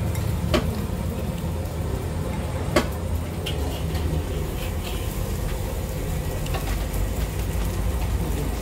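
Two sharp clinks of a metal spoon and fork against a plate, about half a second in and again near three seconds, over a steady low rumble of street traffic.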